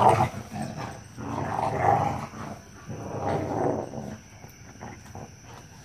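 Australian Shepherd puppy and Black Mouth Cur play-fighting, with rough play growls: a short loud one at the start, then two longer growls of about a second each, quieter toward the end.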